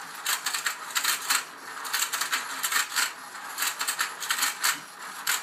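Battery-powered rotating pond of a Let's Go Fishin' toy game running, its plastic gears clattering in rapid, even clicks, about five a second.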